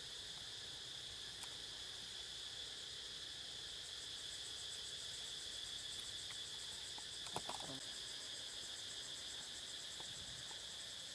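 Steady, high-pitched chorus of forest insects, with a fine rapid pulsing. About seven seconds in, a brief call falls in pitch.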